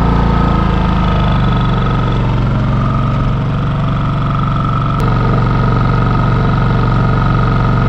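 Champion 4500 inverter generator's 224cc single-cylinder engine running steadily with eco mode off, under load while charging an RV. Its engine speed shifts slightly in the first couple of seconds, and there is a single click about five seconds in.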